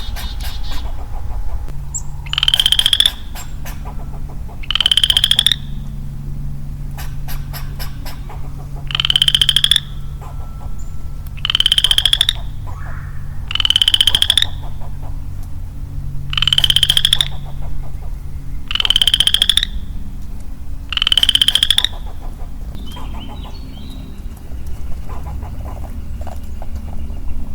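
A single male western chorus frog calling: eight short, rising pulsed trills, like a finger run along a comb, repeated about every two and a half seconds, then stopping about 22 seconds in.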